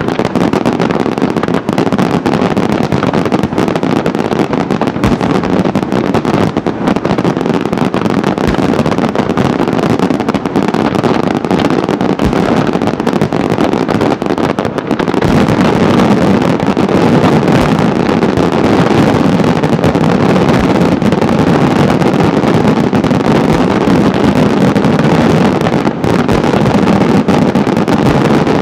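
Fireworks in a dense barrage: many shell bursts and crackles in quick succession merging into a continuous rumble, growing louder and denser about halfway through.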